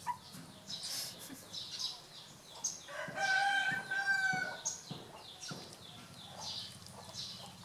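A rooster crowing once, a long steady call starting about three seconds in and lasting about a second and a half, over short high chirps throughout.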